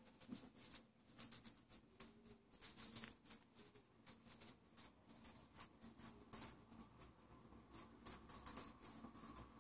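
Boa constrictor swallowing a small rat: faint, irregular rustling and crackling clicks, several a second, as its jaws work forward over the rat's fur.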